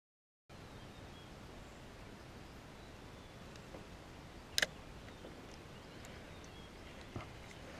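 Faint steady outdoor background after half a second of dead silence, with one sharp click about halfway through from a spinning reel as its bail is flipped shut, and a small tick near the end.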